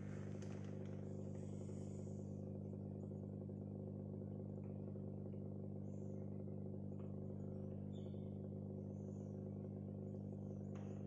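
Steady low electrical hum, a stack of mains-hum tones, from the choke ballast of a high-pressure sodium vapour lamp that has just been ignited and is warming up. A few faint high chirps come and go over it.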